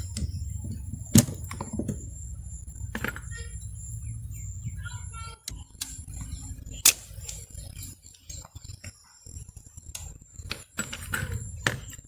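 Steel pliers and a screwdriver clicking and scraping on a scooter's centrifugal clutch shoe assembly as its shoe return springs are prised off, with two sharp metallic snaps about a second in and about seven seconds in. Birds chirp briefly in the background in the middle, over a low hum.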